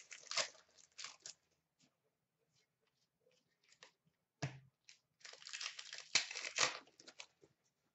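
Foil wrapper of a trading card pack crinkling and tearing as it is opened and the cards are handled, in short rustles. There is one sharp knock about halfway through.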